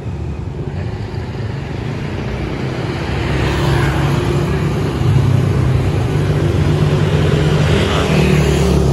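Street traffic with engines running. A motorbike passes close about four seconds in, and the engine hum grows louder from about three seconds in and stays loud.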